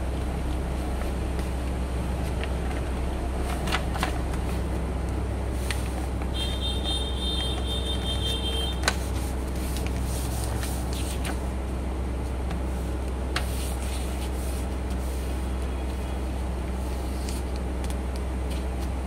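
A sheet of paper being handled and folded into a triangle on a desk mat, with scattered short crinkles and crease sounds, over a steady low hum.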